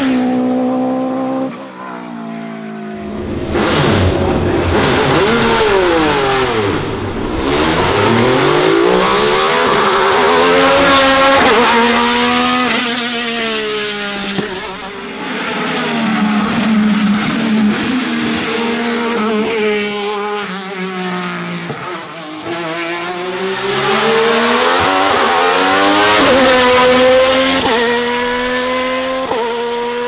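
A Lancia Delta S4 rally car's engine fades as it pulls away. About two seconds in, an Alfa Romeo 155 V6 ITC's V6 racing engine takes over, revving hard at full throttle. Its pitch climbs and drops again and again through gear changes and braking for corners.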